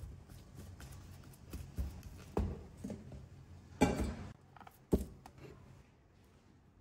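Kitchen utensils knocking and clinking against a bowl or pan, a few separate knocks with the loudest about four seconds in, over a low steady hum.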